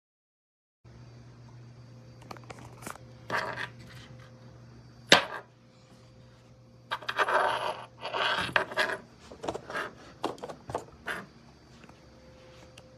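Small hard objects being handled: irregular light clicks, clinks and scrapes over a low steady hum, with one sharp click about five seconds in and a busier spell of scraping a little later.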